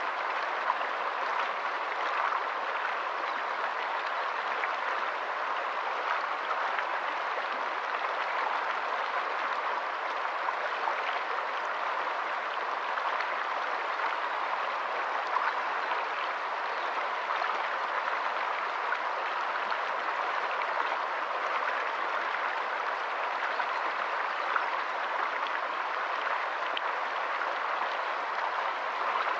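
Shallow rocky stream running over stones in small riffles: a steady rush of water with many small splashes.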